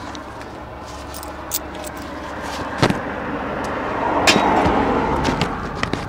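A car passing on the road, its noise swelling to a peak about four to five seconds in and then fading, with a few sharp clicks of handling close by, the loudest just before three seconds in.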